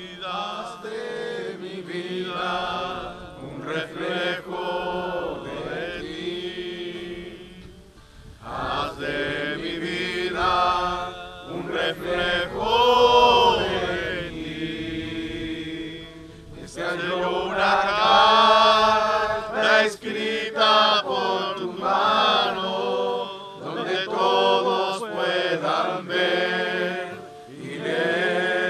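A group of people singing a Spanish-language worship song together, in phrases with short breaks between them.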